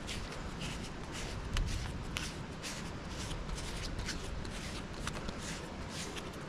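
Irregular crunching and rustling clicks over a steady low rumble.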